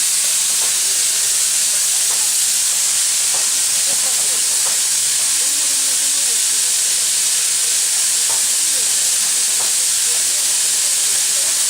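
Steam locomotive L-4600 venting steam with a loud, steady hiss that does not let up, with faint voices underneath.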